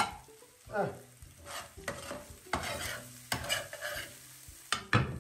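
A metal spatula scraping and stirring scrambled egg around a frying pan, in a run of short scrapes about once or twice a second, over a sizzle from the pan.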